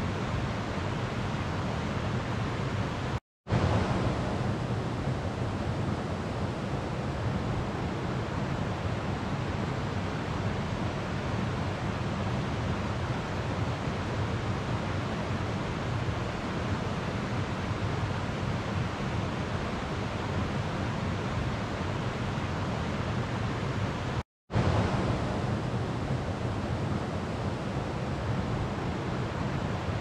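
Steady rushing of a slowly flowing river. Twice it cuts out to silence for a split second, once a few seconds in and again near the end, then resumes.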